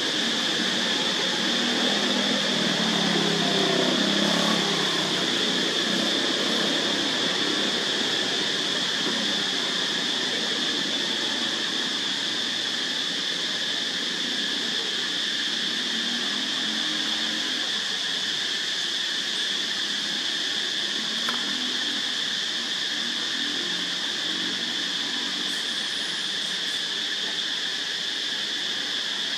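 Steady insect chorus outdoors, a constant high-pitched drone with a hissing edge. A faint low sound swells and fades a few seconds in.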